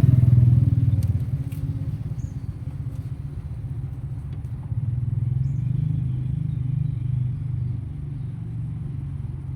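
A motor vehicle's engine running steadily, louder for about the first second and then settling to an even, lower level.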